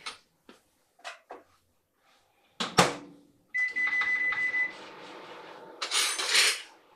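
A few light clicks, then a microwave oven door shut with a sharp clack about three seconds in. Half a second later the oven starts running with a steady hum and a high whine over its first second, and a short burst of louder noise comes near the end.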